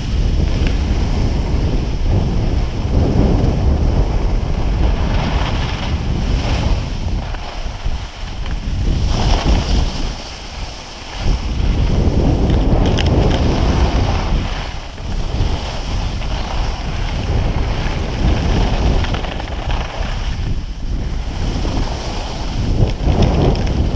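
Wind buffeting the microphone of a camera carried by a skier moving downhill, with the hiss of skis on packed snow swelling and fading with the turns. There is a brief lull about ten seconds in.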